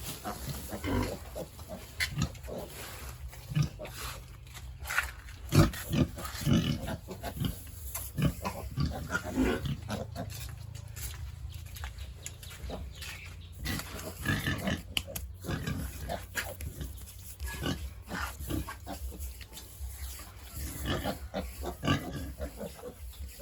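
Pigs grunting in many short, irregular calls over a steady low hum.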